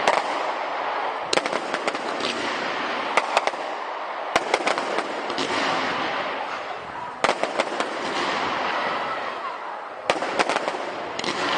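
Aerial fireworks: a continuous dense crackle with sharp bangs every second or two, several coming in quick clusters.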